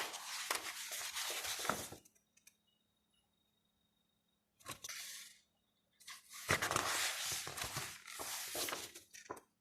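Paper rustling as the pages of an album's photo book are turned and handled, in three bouts with a quiet gap of a couple of seconds after the first.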